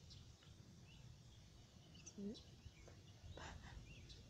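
Near silence: faint outdoor ambience with a low rumble and a few short, faint bird chirps.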